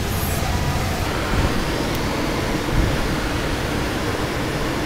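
Steady rush of air over a glider's canopy in flight while under tow behind a single-engine tow plane.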